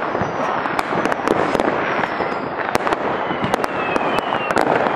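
Many fireworks and firecrackers going off at once: a continuous crackle studded with frequent sharp bangs, with a few thin whistles in the second half.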